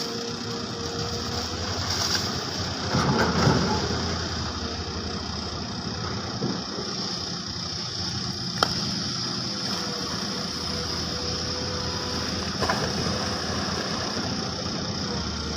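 Diesel engine of an XCMG XE215 long-reach excavator running steadily as it digs, with a louder rough stretch about three seconds in and a single sharp clank around the middle.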